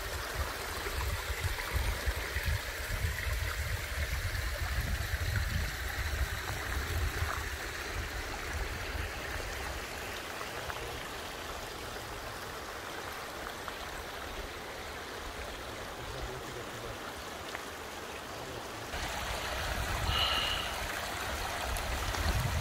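Small mountain stream trickling over loose rocks: a steady, gentle running-water sound.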